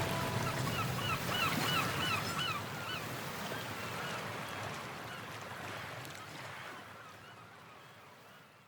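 A run of short, repeated bird calls over a steady rushing noise like surf, the whole sound fading out gradually to near silence.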